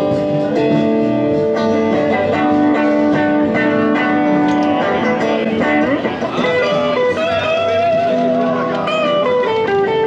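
Electric guitar playing a bluesy melody over held chords, with bent, wavering notes from about halfway through.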